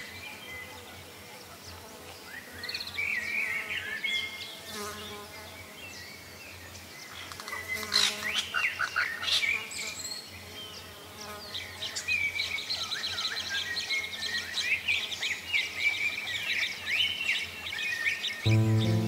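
Small birds chirping and twittering in a chorus of short notes that bend up and down, busiest from about eight seconds in, over a faint steady low hum. Music comes in just before the end.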